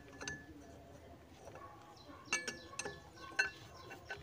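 Steel wrench and socket clinking against a Kubota combine harvester's steel track roller and its bolt as the tool is fitted: a handful of sharp metal clinks, each ringing briefly.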